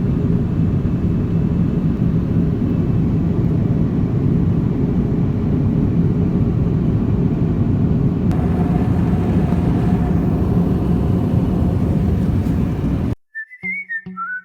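Jet airliner engine noise, a loud steady low rumble. About 13 seconds in it cuts off suddenly and whistled background music with a beat starts.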